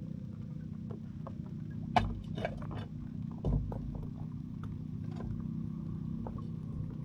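Several sharp knocks and clicks, the loudest about two seconds in, over a steady low rumble.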